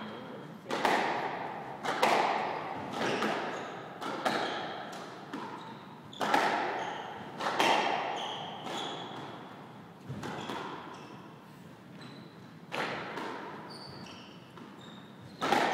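Squash rally: the ball is struck by rackets and smacks off the court walls about once a second, each hit echoing in the court, with a lull of a couple of seconds past the middle. Short high squeaks of court shoes come between the hits.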